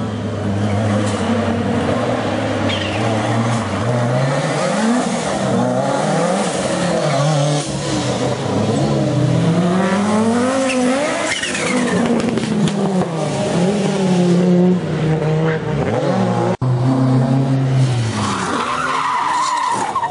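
Rally car engine revved hard, its note climbing and dropping back again and again through gear changes, with tyres squealing. A brief break about three-quarters of the way through.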